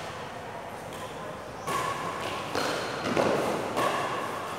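Badminton rally: rackets striking the shuttlecock and players' feet on the court, a few sharp hits under a second apart beginning about a second and a half in, each ringing on in the hall's echo.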